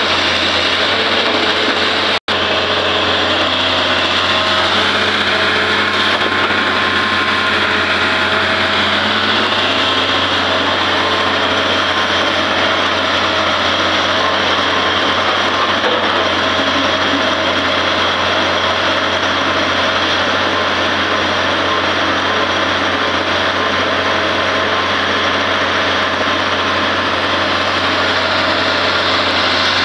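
Heavy diesel machinery on an earth-moving site, an excavator and a tipper truck, running steadily, with a high whine over the engine sound that rises and falls once. The sound cuts out for an instant about two seconds in.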